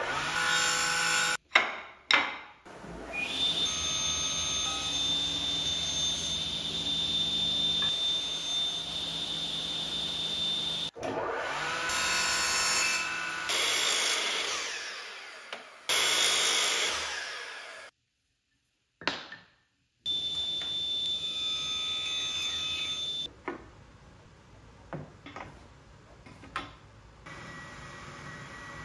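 Woodworking power tools in a string of short cuts: a combination woodworking machine's motor running steadily with a high whine, with a couple of sharp knocks about two seconds in, and a mitre saw cutting wood around the middle. Near the end, quieter light ticks of hand marking work on wood.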